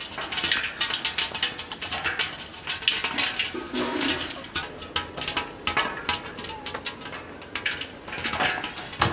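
Popcorn kernels popping inside a covered metal pot: a fast, irregular run of sharp pops and ticks against the lid and pot walls.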